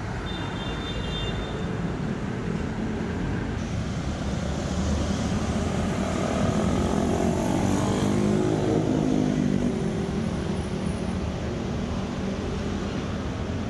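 Road traffic rumbling steadily, with one vehicle passing close and growing louder to a peak about eight seconds in before fading, its engine pitch shifting as it goes by.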